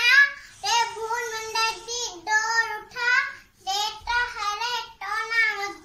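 A young child singing in a high voice, about four sustained phrases with short breaks between them.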